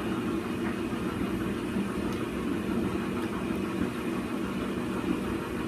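A steady mechanical hum, even and unchanging.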